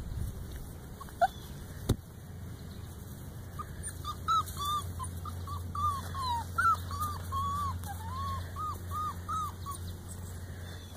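Sheltie puppy whimpering: a quick string of short, high whines, about three a second, starting a few seconds in and stopping a second or so before the end. Two sharp knocks come in the first two seconds.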